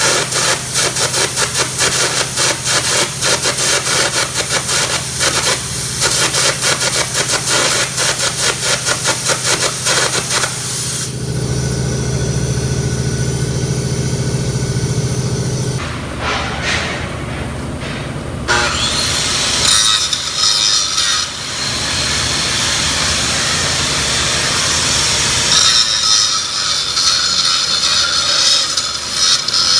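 Metalworking on a steel roller: a fast rhythmic rasping for the first ten seconds or so, then a steady low hum, then a high whine that rises about two-thirds of the way in and holds, giving way to rough, uneven noise near the end.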